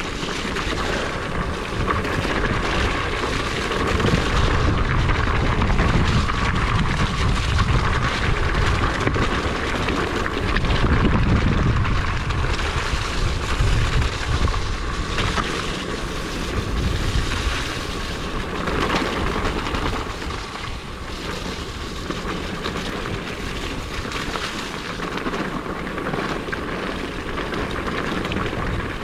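Riding noise from an electric mountain bike on a rough, wet trail: the tyres and bike rattling over the ground, with a deep rumble of wind buffeting the microphone that is heaviest through the first half.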